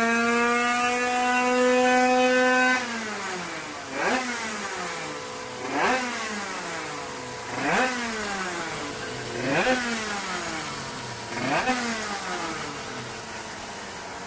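The Bidalot WR 50cc's tuned Derbi two-stroke single running on a roller dyno. It is held at high revs with the pitch creeping up, then the throttle shuts about three seconds in and the revs fall away. Then come five sharp throttle blips about two seconds apart, each rising quickly and dying off slowly.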